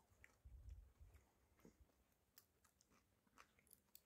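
Faint chewing of a mouthful of fried tilapia, mostly in the first second, then a few faint mouth clicks.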